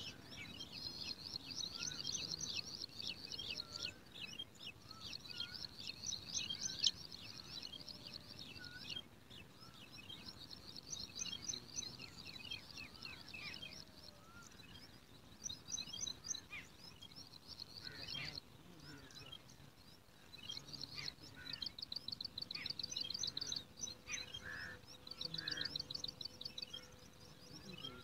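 Small birds chirping in fast, high trills that come in bouts of a few seconds, with short pauses between them.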